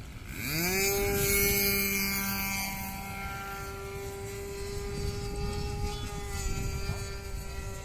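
Seagull Spacewalker RC model airplane engine revving up quickly about half a second in, then holding a steady high-speed drone until it stops near the end.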